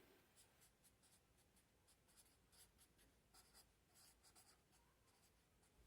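Faint handwriting: a series of short, light scratching strokes as a word is written out.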